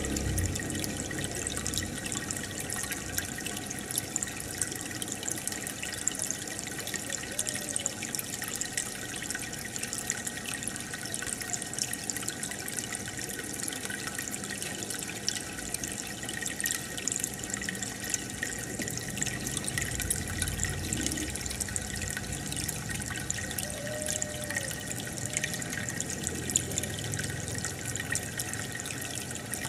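Aquarium filter and air bubbles: a steady trickling, bubbling water sound with fine crackles of bursting bubbles.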